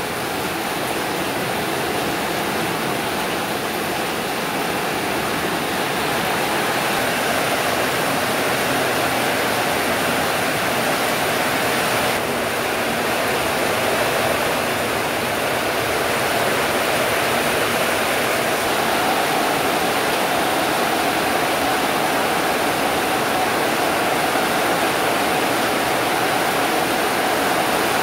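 Heavy rain pouring steadily onto corrugated metal and clay-tile roofs, a dense, even hiss.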